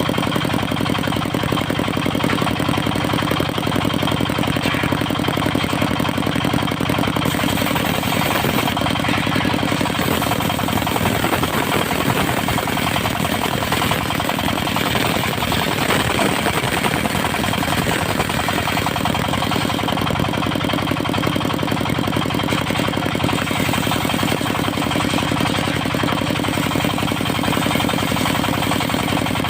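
Engine of a portable circular-saw sawmill running steadily without a break. Through the middle stretch its sound turns rougher and brighter, then settles back to the steadier run near the end.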